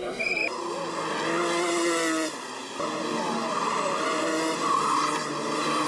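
Two-stroke Rotax MAX racing kart engines running at race speed, their pitch rising and falling as the karts go through a corner.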